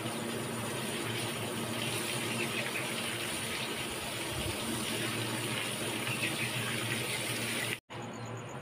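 Water gushing from a garden hose and splashing onto a concrete floor, a steady hiss that cuts off abruptly near the end.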